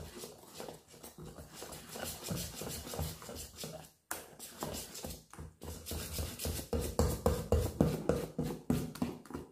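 Wire balloon whisk beating thin spinach pancake batter in a stainless steel bowl: a quick, rhythmic clatter of the wires against the metal and the slosh of batter, with a short break about four seconds in and louder strokes in the second half.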